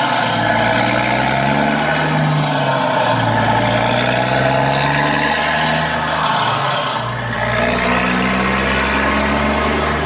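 Big-rig semi truck engine running, its pitch rising and falling several times.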